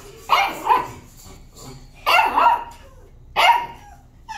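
Dog barking in a kennel ward: about five short barks, two near the start, two more about two seconds in and a single one near the end.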